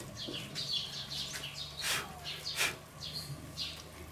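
Songbirds chirping and singing, a string of short repeated chirps, with two short clicks about two seconds in.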